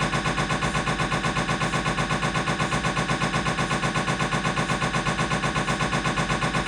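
Siemens MAGNETOM Lumina 3 T MRI scanner's gradient coils knocking in a rapid, even rhythm of several pulses a second, the noise of a T1-weighted sagittal turbo spin echo sequence.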